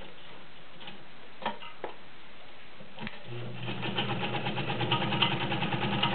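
Kenmore 1203 all-metal sewing machine stopped, with a few short clicks. About three seconds in it starts stitching again, running steadily through four layers of garment leather.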